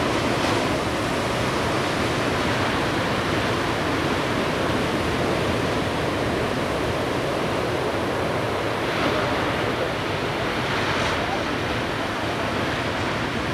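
Ocean surf: a steady wash of breaking waves, with a couple of brief brighter rushes in the second half.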